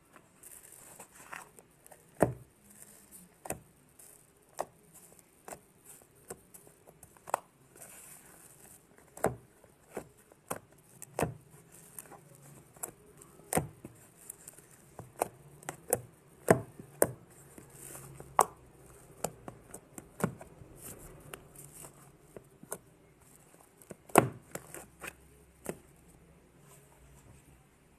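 Fluffy slime made with borax, glue and shaving foam being squeezed and poked by hand, giving irregular sharp pops and clicks, about one or two a second, some much louder than others.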